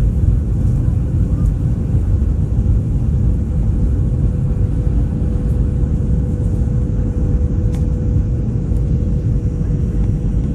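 Jet airliner cabin noise on the landing descent: a steady low rumble of the turbofan engines and airflow, with a thin, steady mid-pitched hum running through it.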